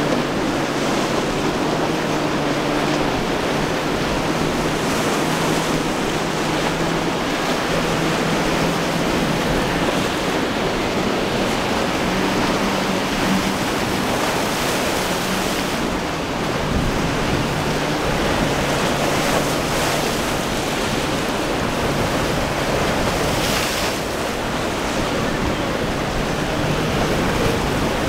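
Rough surf and choppy waves breaking, with wind buffeting the microphone. A boat's outboard motor hums faintly under the surf for about the first half, then fades out.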